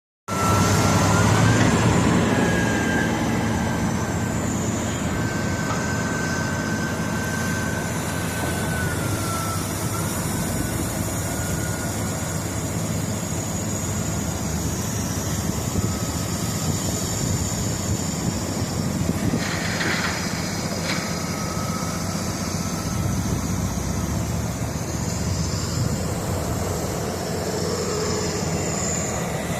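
Heavy construction machine's engine running steadily, with a thin high whine that wavers in pitch during the first third.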